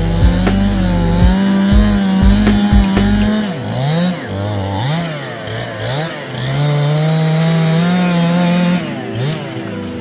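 Stihl two-stroke chainsaw running at high revs while cutting wood. In the middle its pitch dips and rises several times as the throttle is eased and squeezed, then it holds steady again before dropping off near the end.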